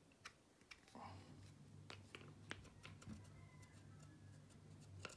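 Near silence with a faint low hum and a few light, scattered clicks and ticks of metal parts being handled as the air rifle's barrel is worked out of its receiver.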